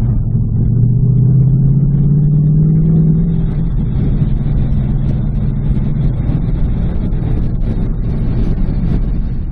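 Ford Mustang Bullitt's V8 engine running as the car drives, its note climbing a little in the first few seconds, then a steady rumble.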